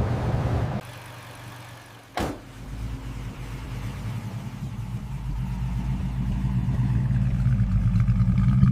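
A hiss cuts off under a second in, a sharp click follows about two seconds in, then the Nissan GT-R R35's engine runs with a steady low rumble that grows louder toward the end.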